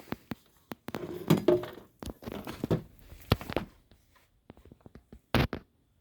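Irregular knocks, taps and rustling of something being handled at close range, with a few louder knocks, the sharpest a little after five seconds in; no music is playing.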